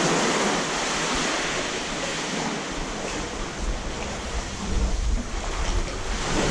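Sea water washing and lapping inside a rock sea cave, a steady rushing hiss, with a low rumble swelling from about halfway in.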